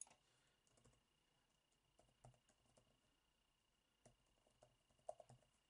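Near silence with faint computer-keyboard typing: a few soft clusters of keystrokes, the loudest near the end.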